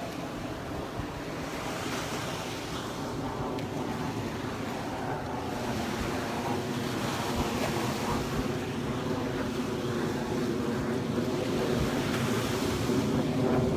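Small Gulf waves washing onto the beach in slow swells, with wind on the microphone and a steady low hum underneath that grows louder toward the end.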